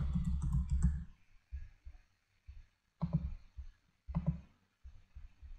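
Computer keyboard typing: a quick run of keystrokes in the first second, then a few separate taps and clicks.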